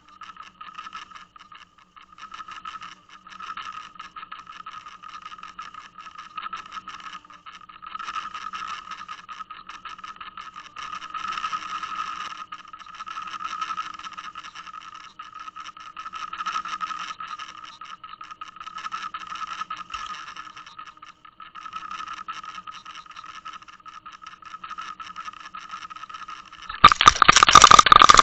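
Boat motor heard through the water from a towed underwater camera: a steady whine with constant fine rattling. Near the end, as a fish takes the lure, a loud burst of clattering and scraping.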